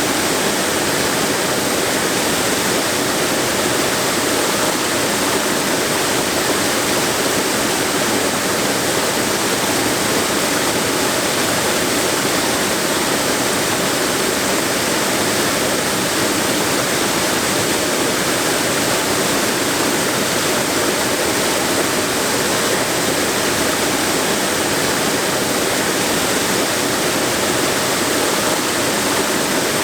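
Waterfall: a steady rush of water tumbling and splashing over rocks, with no breaks or changes.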